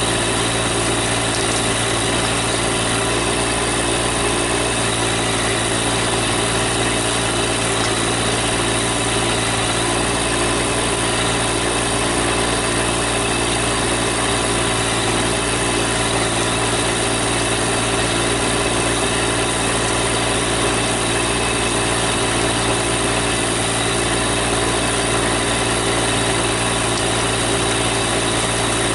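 Massey Ferguson GC1710 compact tractor's diesel engine running steadily, holding one speed.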